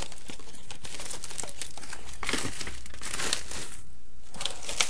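Empty booster-pack wrappers being crumpled and crinkled up by hand as trash, crackling irregularly, with a few sharper crackles near the end.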